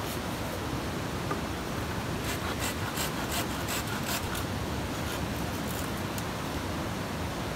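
A quick run of short scraping strokes as bamboo poles are worked over by hand with a blade, a couple of seconds in, over a steady background hiss.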